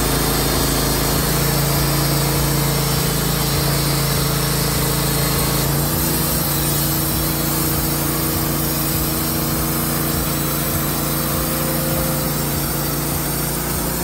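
Wood-Mizer LT15 band sawmill cutting through a log under load: a steady engine drone with the band blade's sawing noise, the engine note dropping slightly about six seconds in.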